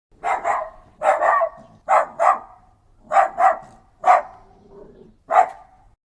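A dog barking repeatedly: about ten short barks, several coming in quick pairs.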